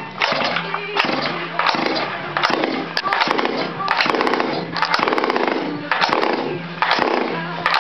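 A cold Chinese-copy 49cc two-stroke engine is cranked over and over by its recoil pull-starter, about ten quick pulls. Each pull gives a short rattling burst, and the engine does not catch.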